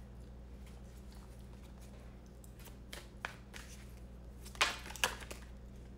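Tarot cards handled by hand as a card is drawn from the deck: a few soft clicks about three seconds in and a brief papery flick near five seconds, over a faint steady low hum.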